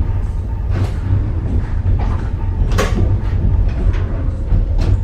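Passenger train coach rolling into a station, heard from inside the car: a steady deep rumble with a handful of sharp knocks and clacks from the running gear, the loudest near the middle.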